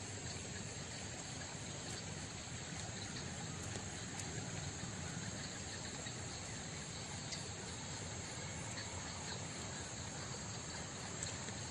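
Steady insect chorus, a continuous high shrilling, over a low background rumble.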